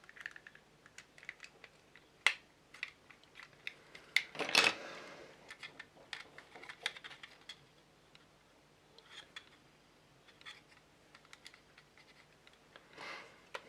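Plastic parts of a 1/72 scale model kit being handled and pressed together: scattered light clicks, taps and scratches, with a sharper click about two seconds in and a louder scraping rustle around four and a half seconds.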